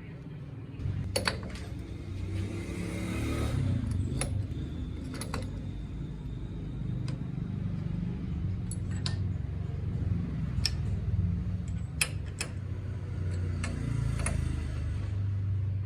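Steady low machine hum with scattered sharp metallic clicks and clinks, as metal tools and parts are handled at a lathe.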